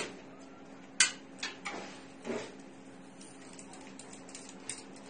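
Small clicks and knocks of metal jack plugs and earphone leads being handled and plugged in at a test bench, the sharpest click about a second in, over a steady low hum.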